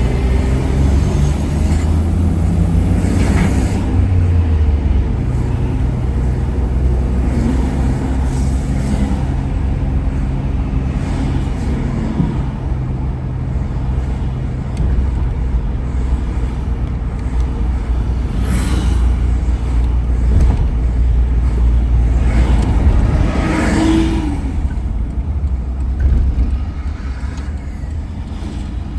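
Steady low engine and road rumble of a car driving through city streets, heard from inside the cabin, with a few brief swells of noise from passing traffic.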